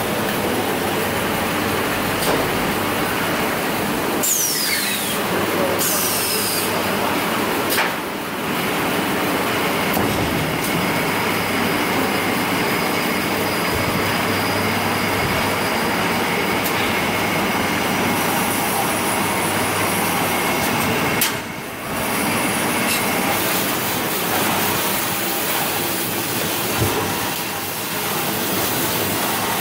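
Automatic band-saw log cutter for maxi toilet-tissue rolls running, a steady, loud mechanical noise. There are two brief falling whines about four and six seconds in, and the noise drops out briefly twice.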